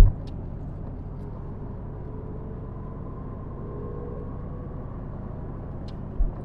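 Car driving along a road, heard from inside the cabin: steady low road and engine rumble, with a short low thump at the very start.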